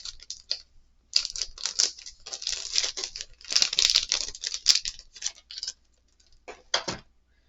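Plastic packaging of board game miniatures rustling and crinkling as it is handled, in irregular bursts, with a few sharper crackles near the end.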